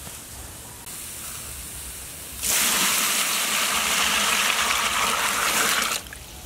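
Water poured from a container into a large metal pot of cow leg pieces, shallots and lemongrass: a loud, steady gushing splash that starts about two and a half seconds in and cuts off abruptly about half a second before the end.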